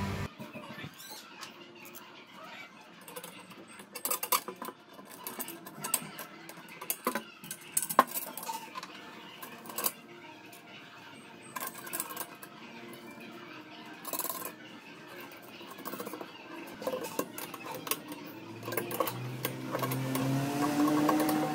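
Metal parts clinking and tapping as steel square tubing, a pillow-block bearing, bolts, a screwdriver and pliers are handled and fitted together on a wooden workbench. There are scattered sharp clinks, some louder, with quieter handling between them.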